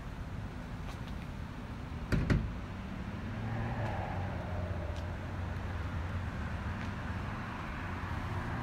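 Street traffic: car engines running, with a steady low hum through most of it and a single thump about two seconds in.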